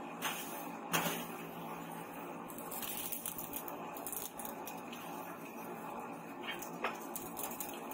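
Lumps of charcoal in a forge fire clinking and crackling as they are poked and stirred with a metal rod, with a few sharp clicks over a steady hiss.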